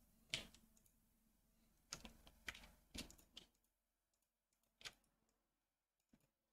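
Faint, scattered computer keyboard keystrokes and clicks, about eight in all, most bunched together in the middle, with near silence between them.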